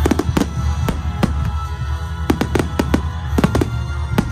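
Music with steady held tones and heavy bass, over which fireworks burst and crackle in many sharp, irregular bangs.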